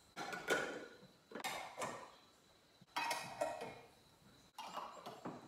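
Screw-top lids being twisted onto large glass jars, four bursts of lid threads grinding and clinking against the glass, about a second and a half apart.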